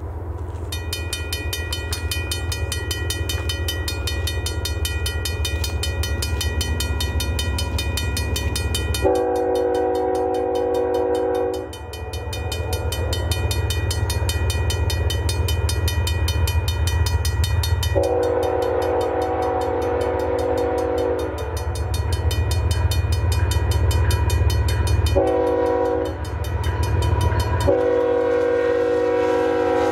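Air horn of a CN GE ES44AC diesel locomotive leading a freight train, sounding the grade-crossing signal: two long blasts, a short one and a final long one, the warning for a road crossing ahead. Under it the approaching diesels give a steady low rumble, with a high steady whine in the first few seconds.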